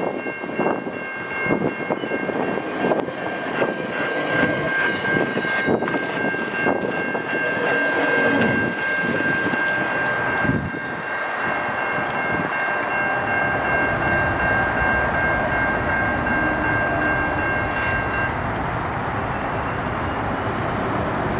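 GO Transit MP40PH-3C locomotive's multi-note chord horn sounding one long sustained blast over the rumble and wheel clatter of the passing train. The horn cuts off near the end, leaving the train's rolling noise.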